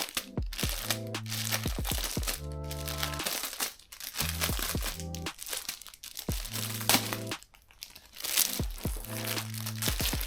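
Background music of sustained chords over bass notes, with the crinkling and rustling of packaging being handled.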